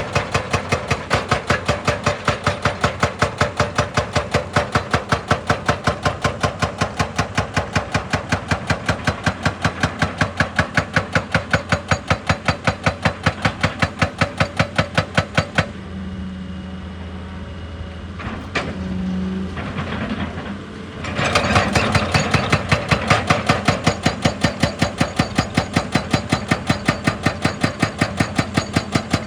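Excavator-mounted hydraulic breaker hammering rock in rapid, evenly spaced blows, about three or four a second, over the running engine. The hammering stops for about five seconds midway, leaving the engine running, then starts again.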